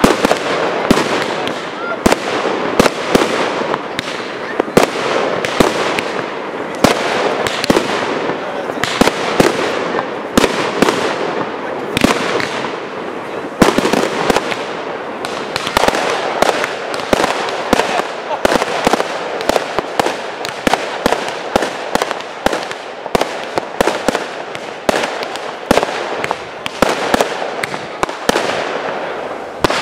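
Fireworks display: aerial shells firing and bursting in a continuous barrage, dozens of sharp bangs in quick succession with no pause.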